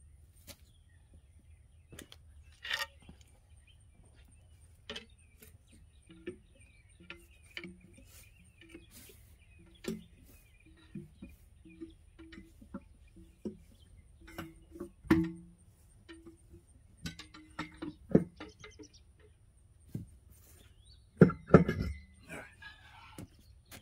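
Scattered metallic clinks and knocks of a heavy truck brake rotor and hub assembly being handled and worked loose from the wheel, with a few heavier knocks near the end.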